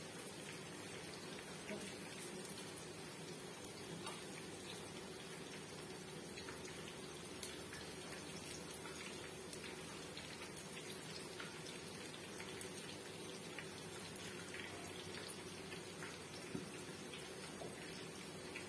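Eggplant slices frying in hot oil in a pan: a steady sizzle with many small scattered pops and crackles.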